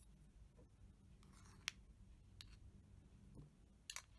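Faint scraping and a few light clicks of a metal teaspoon against a jar and dish as shea butter is scooped out, with a quick pair of clicks near the end.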